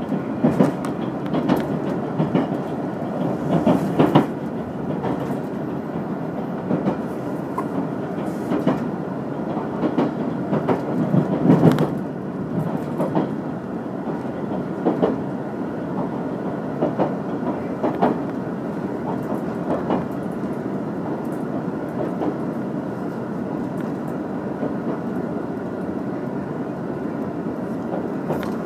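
Steady rumble of a railway carriage heard from inside the car, with irregular clacks of the wheels on the rails. The clacks are louder and more frequent in the first twelve seconds, then the running noise is steadier.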